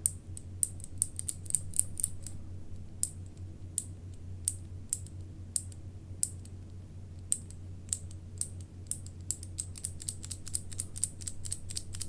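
Cherry MX mechanical keyboard keys fitted with rubber O-rings being typed on: a run of short, sharp key clacks, spaced out at first, then in quick flurries in the second half. The O-rings cushion the keys as they bottom out to reduce the noise.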